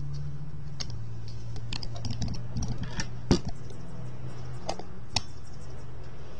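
Irregular clicks and knocks from an air rifle being handled and moved, with one sharper knock about a third of the way in, over a steady low hum.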